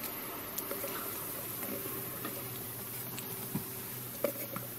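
Soft rustling and scattered small clicks as a cat shifts about on cloth bedding in a cardboard box, with a couple of sharper ticks near the end.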